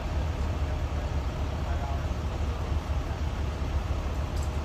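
Steady low rumble of an engine running, with faint voices under it.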